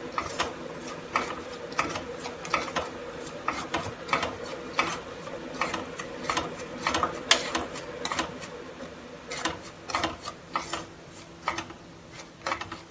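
Spatula scraping and stirring dry semolina around a kadhai as it dry-roasts, a rhythmic scrape two or three times a second over a steady low hum.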